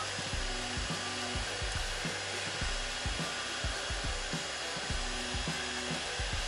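An electric dryer-type blower running steadily, with soft low knocks from the plastic headlight housing being handled.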